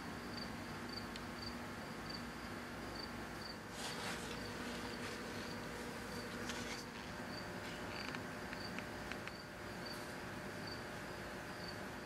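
Steady high-pitched chirping, about three chirps a second. Over it, a bristle brush scratches a few strokes of Danish oil onto dry wooden trunk slats, about four seconds in and again a couple of seconds later.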